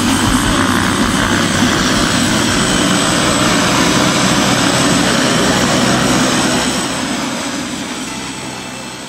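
Twin propeller engines of a Britten-Norman Islander running steadily as it taxis close by, a loud propeller drone with a low hum; it fades away over the last couple of seconds.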